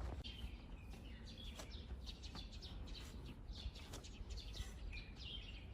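Small birds chirping repeatedly over a steady low rumble, with a few faint clicks.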